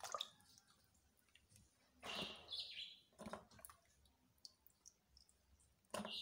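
Faint splashing and sloshing of water as hands rub peeled matooke in a metal pot, with a few short bird chirps, one about two seconds in and another near the end.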